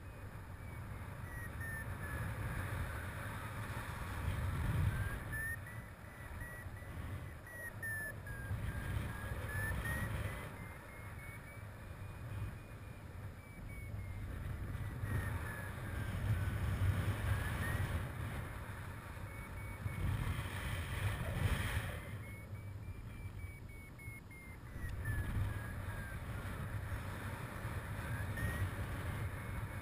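Airflow buffeting the camera microphone in paraglider flight, a low rumbling rush that swells and eases every few seconds, with a louder gust about two-thirds of the way in. Under it a paragliding variometer beeps faintly, its pitch drifting slowly up and down with climb and sink.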